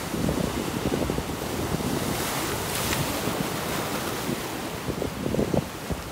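Ocean waves breaking and white water washing over a rock ledge, the wash swelling about halfway through, with wind buffeting the microphone.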